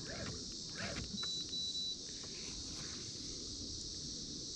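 Steady high chirring of insects such as crickets, with a few short high beeps about a second in.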